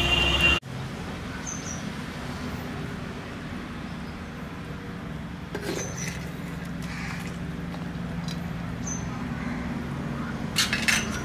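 Steady low background hum with a few faint, short high bird chirps, about two seconds in and again near the end, and a few light clicks.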